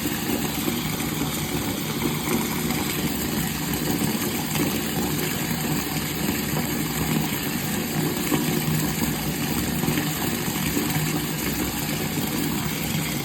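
Water running steadily from a faucet, an even rushing hiss.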